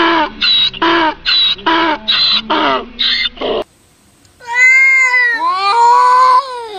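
A donkey braying in a quick run of short, even hee-haw calls, about two a second, that is cut off abruptly; after a short gap, a cat yowls twice in long calls that rise and fall in pitch, the warning yowl of a cat standoff.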